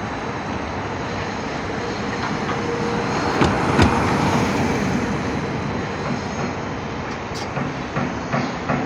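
Construction-site machinery noise: a steady rumble that swells about three to five seconds in, with a couple of sharp metal knocks at the loudest point and lighter clanks near the end.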